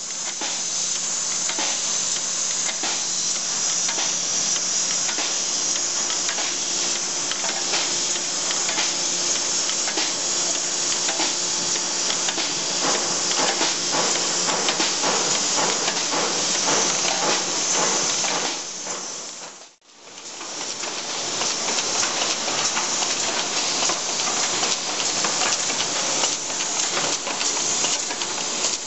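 Brass rifle-case manufacturing machinery running: a steady hiss over dense, rapid clicking and rattling from the screw-fed case line and its mechanism. The sound drops out for a moment about two-thirds of the way through and comes back as another machine runs.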